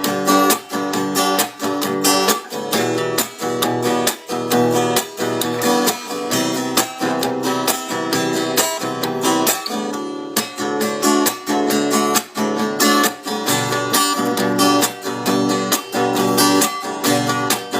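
Acoustic guitar (violão) strummed chords in a steady rhythm, several strokes a second.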